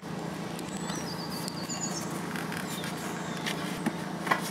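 Handling clicks as a rubber turbo intake pipe is worked back onto its fitting, two sharp ones near the end, over steady outdoor background noise. A bird sings a short rapid trill about a second in.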